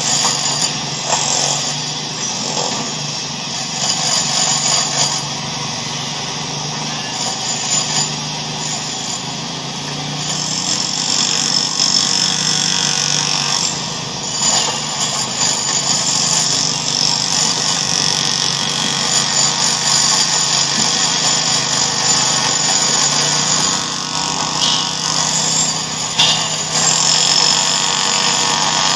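Tohu-bohu sound effect: a continuous, dense din of mechanical noise, with no single source standing out.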